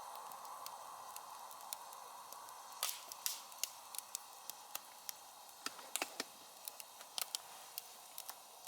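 Wood fire crackling, with irregular sharp pops and snaps over a steady hiss.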